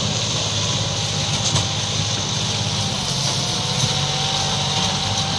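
John Deere 5310 tractor's three-cylinder diesel engine running steadily under the load of a trailer piled with sugarcane, with a faint steady whine above the engine note and a steady high hiss.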